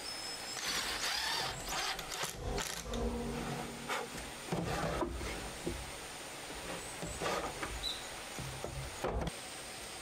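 Irregular knocks, scrapes and rustles of objects being handled and worked, for about nine seconds.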